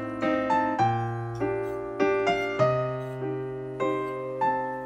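Background piano music: a slow, gentle melody of single notes struck about every half second over held bass notes, each note fading after it is struck.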